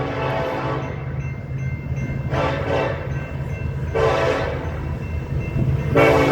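BNSF SD70ACE locomotive's multi-chime air horn blowing in separate blasts. One long blast ends about a second in, two shorter blasts follow, and another long blast starts near the end, the long-long-short-long grade-crossing signal. Under it runs the steady low rumble of the passing train.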